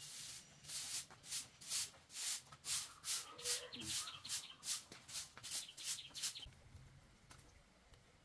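Straw broom sweeping a hard porch floor: quick swishing strokes, about two a second, that stop about six and a half seconds in.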